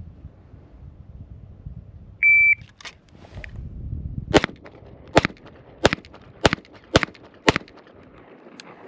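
A shot timer beeps once to start a bill drill, and about two seconds later a Springfield Armory Prodigy pistol fires six rapid shots, a little over half a second apart.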